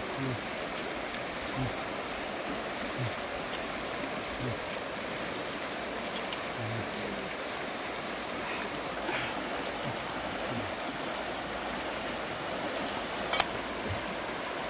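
River water rushing over rocks, a steady wash of flowing water, with one sharp click near the end.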